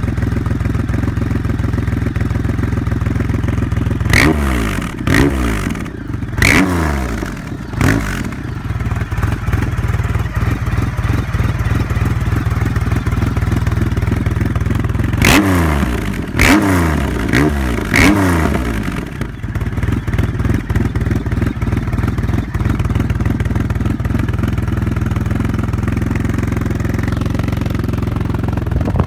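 Triumph Rocket III's 2.3-litre three-cylinder engine idling through an open-pipe polished stainless Extremeblaster exhaust. It has two sets of quick throttle blips, four revs about four seconds in and four more about fifteen seconds in, each rising and falling back to idle.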